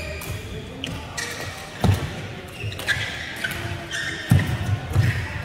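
Badminton hall in play: sharp racket strikes on shuttlecocks, players' footfalls thudding on the court, and brief shoe squeaks, all echoing in a large hall. The loudest are thuds about two seconds in and just past four seconds.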